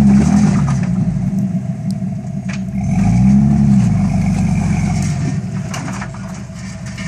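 Jeep Wrangler engine revving up and easing back twice, about three seconds apart, as it crawls over boulders, with a few sharp knocks from the rock.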